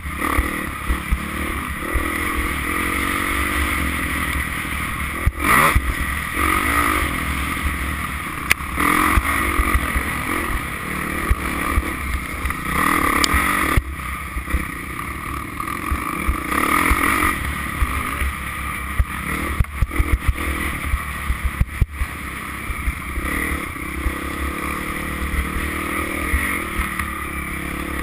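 Off-road motorcycle engine running and revving up and down, heard from the rider's own bike, with wind rumble on the microphone and frequent knocks and rattles from the rough track.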